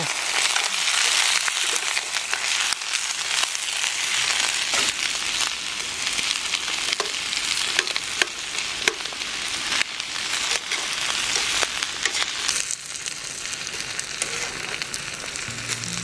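Chopped onions frying hard in garlic-flavoured olive oil over a hot campfire: a dense, steady sizzle with fine spattering crackles, easing a little about three-quarters of the way through.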